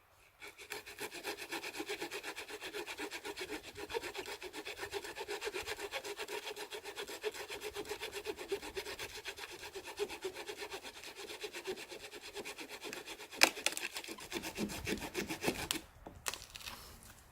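Hand saw cutting through wood in quick, steady back-and-forth strokes, with one sharp knock a little past halfway. The sawing stops about a second before the end.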